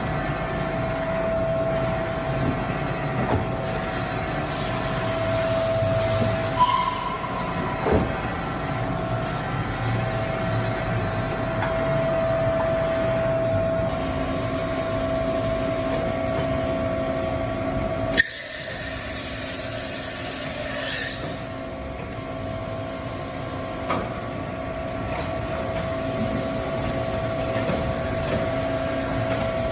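Femco BMC-110R2 CNC horizontal boring mill running, a steady mechanical whine over a lower hum, with a few short clicks. A sharp click comes a little past halfway, after which the running sound is a little quieter.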